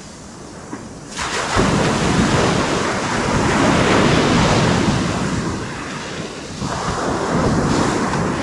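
Ocean surf washing onto the beach, with wind on the microphone. The rush grows loud about a second in, eases, then swells again near the end.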